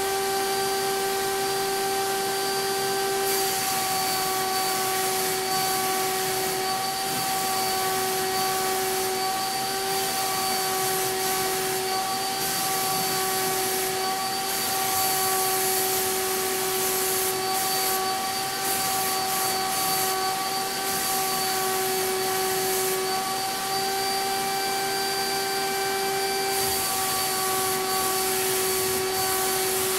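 CAPSpray turbine HVLP sprayer running with a steady whine while a Titan Maxum II gun sprays shellac-based primer, the hiss of air from the gun swelling and dropping every few seconds.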